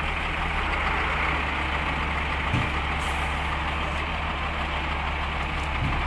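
Diesel engine of heavy earthmoving machinery running steadily with a deep, even hum. A short knock about two and a half seconds in.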